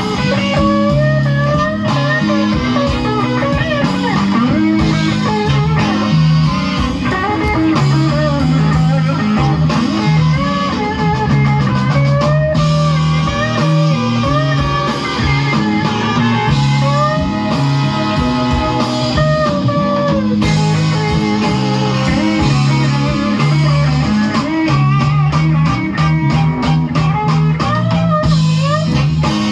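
Live electric blues recording played back over loudspeakers: an electric guitar solo with bent, sliding notes over bass guitar and drums, without vocals.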